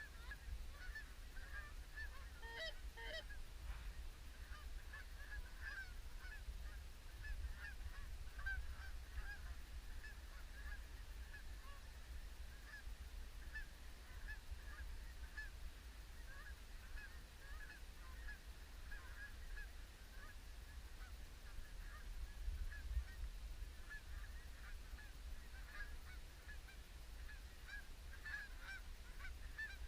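A flock of Canada geese honking continually, many short calls overlapping at a distance, with one louder, closer honk about three seconds in. A low rumble runs underneath.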